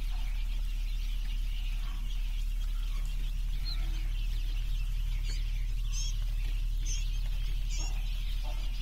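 A crowd of newly hatched quail chicks peeping continuously. A few louder, higher peeps stand out in the second half, over a steady low hum.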